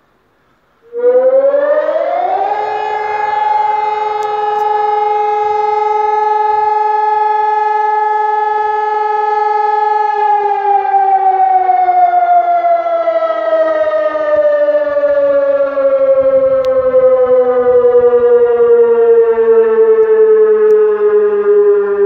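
Sonnenburg SES 1200 electronic siren sounding the fire-alarm signal. About a second in, its tone rises to a steady wail and holds. About ten seconds in, the pitch slides slowly down like a motor siren winding down, which is the first break in the interrupted alarm tone.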